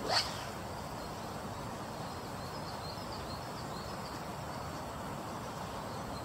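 Swish of a 15-foot double-handed spey rod and line on the forward cast: one quick whoosh falling in pitch right at the start, over the steady rush of a fast, high river. Faint high chirps come through midway.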